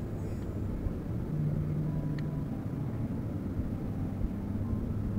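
Wind rumbling on the microphone across open water. About a second and a half in, a low hum from the bass boat's electric trolling motor runs for roughly a second.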